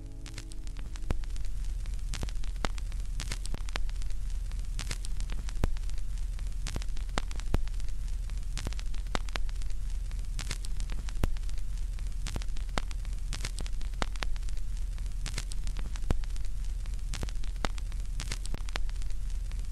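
Steady crackling static over a low hum, with irregular sharp clicks and pops.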